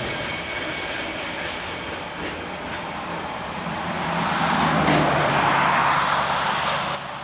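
Freight train of loaded mineral wagons rolling along the narrow-gauge track: a steady rumble with faint high tones early, swelling into a louder rushing noise about four seconds in.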